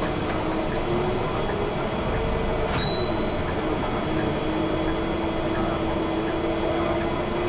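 A bus running along the road: steady engine and road rumble with a humming tone that rises and dips slightly. A short, high electronic beep sounds about three seconds in.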